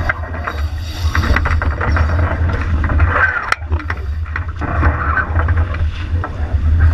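Wind buffeting the microphone aboard a J80 racing sailboat under way, a steady low rumble, with water rushing along the hull and scattered clicks and rattles from the deck gear. A short squeak sounds a little past three seconds in.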